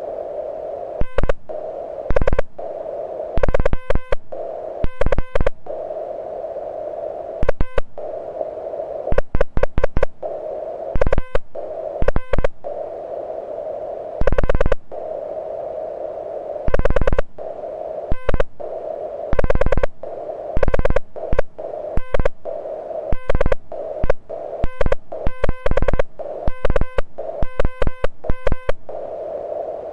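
Morse code keyed on a small QRP CW transceiver (an MTR4B): a loud, buzzy sidetone beeping in groups of dots and dashes, with the receiver's steady filtered band hiss between characters.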